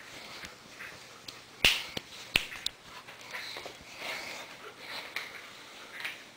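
Siberian husky playing on a tile floor with a blanket and a stuffed toy: a few sharp clicks and knocks, the loudest about a second and a half in, with softer scuffling between.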